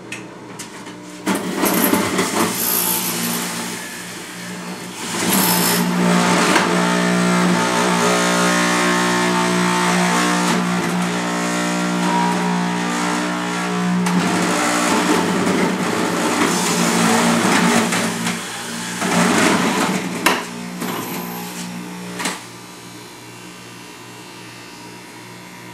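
High-speed centrifugal juicer motor spinning, loud, with grinding and shredding in several long stretches as carrots are pushed down the feed chute into the spinning blade basket. About 22 seconds in the grinding stops and the motor runs on alone with a quieter steady hum.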